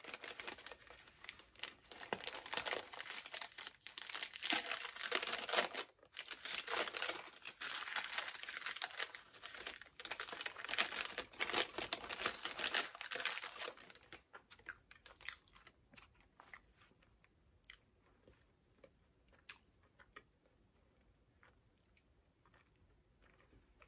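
Close-miked chewing and crunching of gaeseong juak, a fried glutinous-rice cake, with some crinkling of its paper wrapper, dense for about 14 seconds. It then fades to faint scattered clicks and small rustles.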